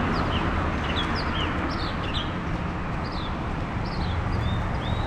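A songbird up in a street tree singing a string of short, quick downward-slurred chirps, a few each second, over a steady background of city traffic.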